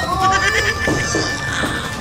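Background music with held, pitched tones over a steady low bed.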